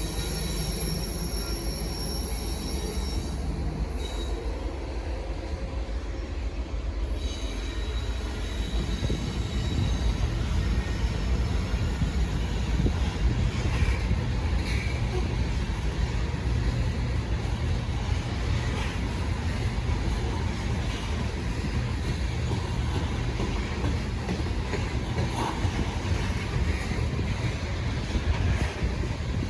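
BNSF freight train rolling past: a steady rumble of steel wheels on the rails, with thin high-pitched wheel squeal in the first several seconds.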